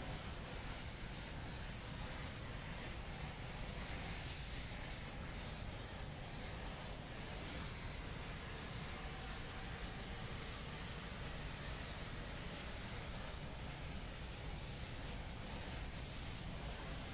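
Steady hiss of a rosebud heating torch's flame held on thick Hardox 400 wear plate, preheating the steel before welding.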